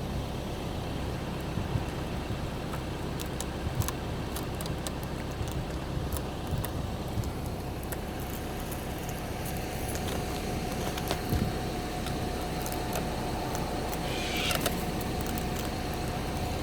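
Steady low background rumble with scattered clicks, and a thin steady tone joining about halfway through. A single short bird call comes near the end.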